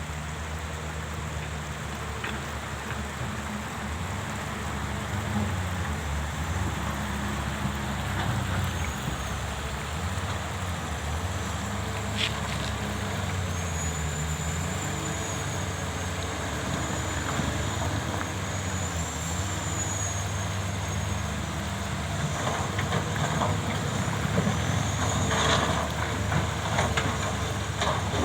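Diesel engines of working excavators, their pitch rising and falling with the load. A high whine rises and falls over it, and there are a few sharp knocks, loudest near the end.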